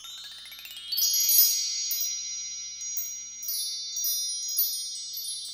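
High, bell-like chimes: a quick rising run of tinkling notes in the first second, then clusters of struck notes that ring on and slowly fade, with fresh strikes about three and a half and four and a half seconds in.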